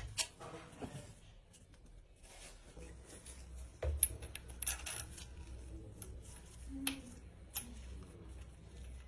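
Light metallic clinks and clicks of tools and engine parts being handled, scattered through, the loudest about four seconds in, over a faint low steady hum.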